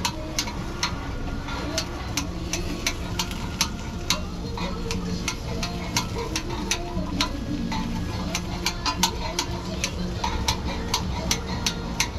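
Metal kitchen scissors snipping through a large pancake on a hot griddle: irregular sharp clicks, a couple a second, over the steady sizzle of frying.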